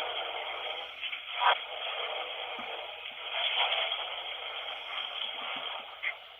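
Running water, a steady hiss that swells and fades a little.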